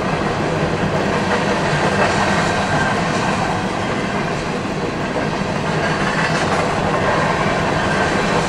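Empty coal hopper cars of a CSX freight train rolling steadily past a grade crossing, a continuous rumble and rattle of wheels on rail, heard from inside a car.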